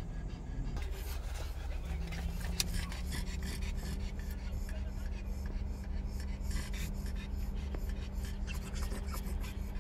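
Pugs panting with quick, rasping breaths in a car cabin, over a steady low hum from the car.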